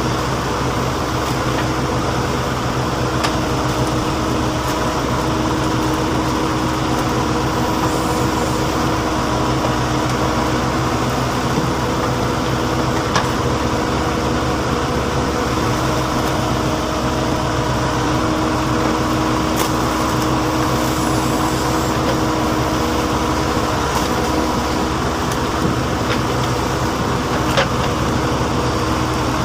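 Diesel engine of a backhoe loader running steadily at an even speed, with a few faint clicks now and then.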